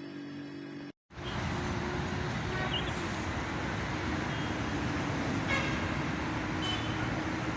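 A steady hum stops abruptly about a second in. After a brief gap comes road traffic noise: a steady rush with a few faint, brief high tones.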